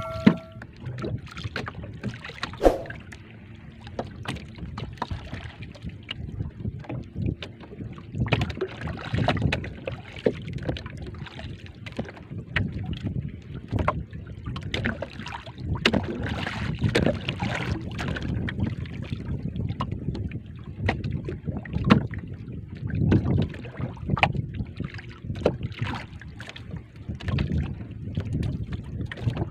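Water slapping and lapping against the hull of a small outrigger boat, with wind buffeting the microphone and irregular knocks throughout.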